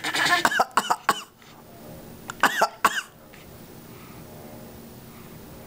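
A father and a baby coughing on purpose, the baby copying him. There is a quick run of short coughs in the first second or so, then two more coughs about two and a half seconds in.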